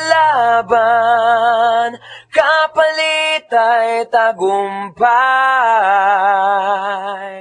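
Music: a singing voice holding long, wavering notes that bend in pitch, with little accompaniment.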